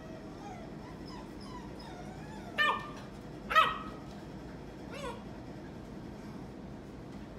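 Eight-week-old yellow Labrador Retriever puppies whimpering, with faint whines rising and falling in pitch. Then come two loud, sharp yips about a second apart and a softer one a little later.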